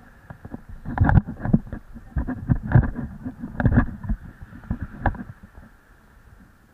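Muffled, irregular knocks and rubbing from an action camera being jostled and handled, heavy and low, for about four seconds before settling.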